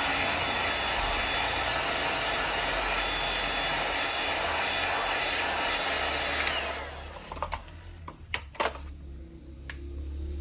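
Electric hot air gun blowing with a steady rushing noise, switched off about six and a half seconds in, its fan winding down. A few small sharp clicks follow.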